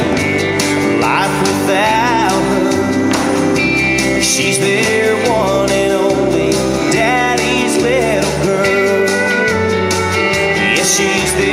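Country song playing, a singer's voice over a steady beat.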